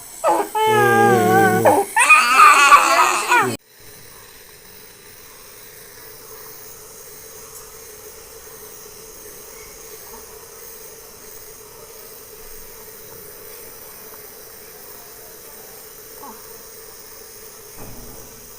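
A baby crying hard in wavering wails, which cut off abruptly about three and a half seconds in. Then a nebulizer's compressor runs alone with a steady low hum and a faint hiss.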